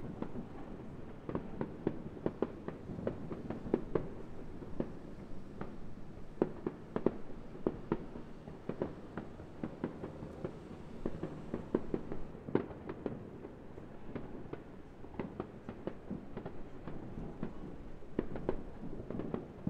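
Distant aerial firework shells bursting: a rapid, uneven string of pops and bangs, several a second, with no let-up.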